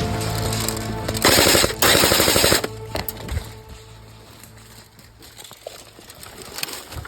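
Airsoft gun firing two loud full-auto bursts of rapid rattling fire, with a short break between them, about a second in. Then only a few faint clicks.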